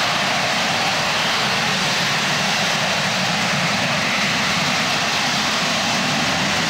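AV-8B Harrier II's Rolls-Royce Pegasus turbofan at hover power: a steady, loud jet noise as the jet hovers and sinks toward a vertical landing.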